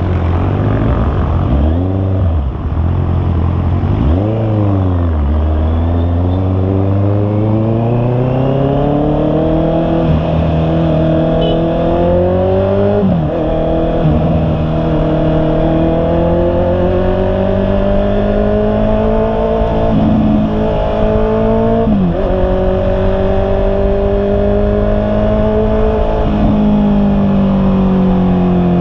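Honda CB650R's inline-four engine under way, its pitch climbing steadily as it pulls and dropping sharply at each of several gear changes.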